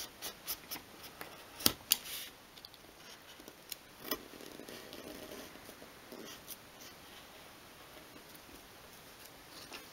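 Craft knife blade cutting through thin obeche wood sheet: a run of short scratchy cuts and clicks, several in the first two seconds, a few more around four to six seconds in, then faint. The blade is being worked deeper along a scored line until it cuts through the wood.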